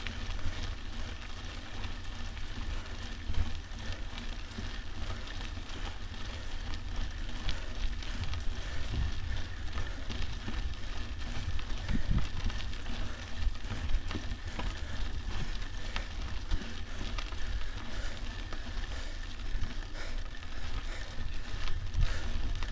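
Mountain bike tyres crackling over a loose dirt and gravel track, with steady wind rumble on the microphone and scattered knocks as the bike goes over bumps.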